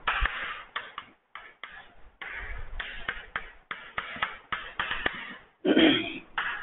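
Chalk writing on a chalkboard: short scratchy strokes with sharp taps as each letter is formed, ending in a longer stroke for the underline. A brief burst of voice comes near the end.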